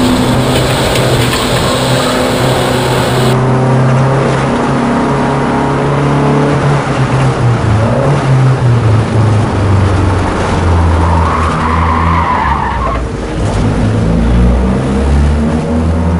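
VW Rabbit race car's engine heard from inside the cabin, running hard through the gears with its pitch stepping up and down. About eleven seconds in, tyres squeal briefly through a corner.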